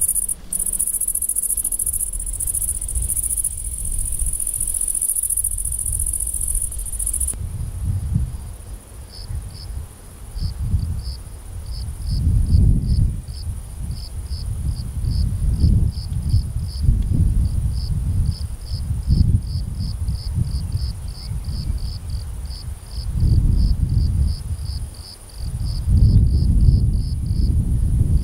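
Insects calling: a steady high-pitched trill, loud for about the first seven seconds and then fainter, and from about nine seconds in a cricket chirping about three times a second. Under them, a low rumble comes and goes in gusts and is the loudest sound.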